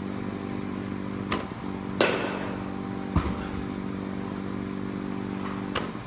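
Steady machine hum in a batting cage. About two seconds in a bat cracks sharply into a baseball, just after a lighter knock, and a dull thud follows about a second later. Another light knock comes near the end.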